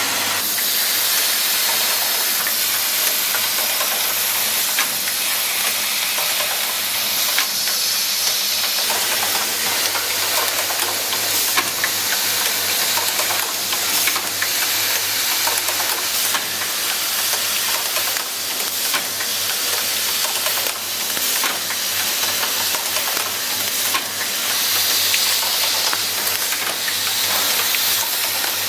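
Keyboard switch automatic assembly machine running: a steady loud hiss with scattered short clicks throughout.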